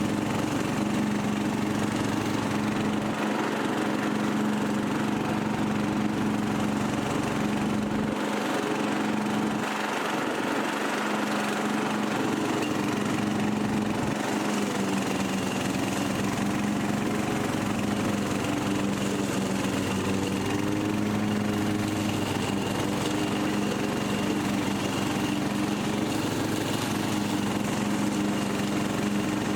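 Newly rebuilt Briggs & Stratton 17.5 HP lawn mower engine running steadily at a constant speed.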